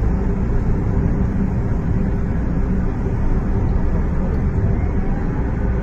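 Steady rumble of a road vehicle on the move: engine and tyre noise, unchanging throughout, with a faint rising-and-falling tone about five seconds in.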